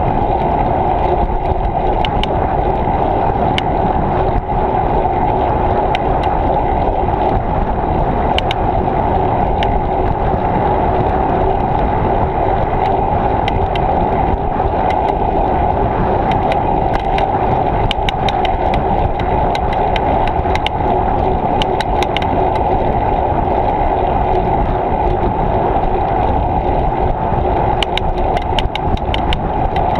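Steady rushing noise of wind and tyres on a moving bicycle, with scattered sharp clicks and a quick run of them near the end.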